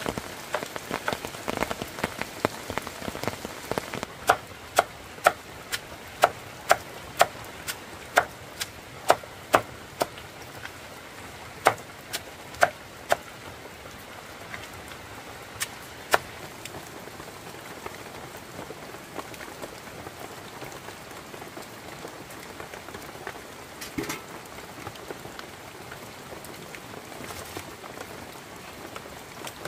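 Steady rain falling. Through the first dozen or so seconds it is overlaid by a run of sharp knocks at about two a second, then only a few scattered ones.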